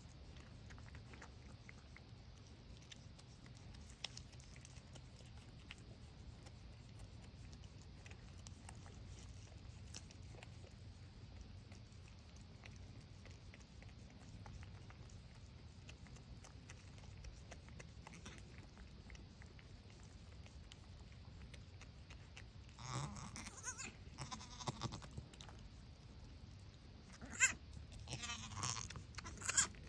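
Goat bleating in two short bouts near the end, over a faint steady low hum.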